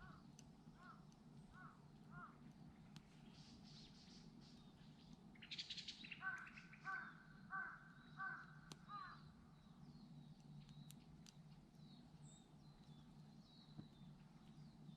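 Birds calling: a few short calls in the first couple of seconds, then a quick run of about five louder calls from about six seconds in.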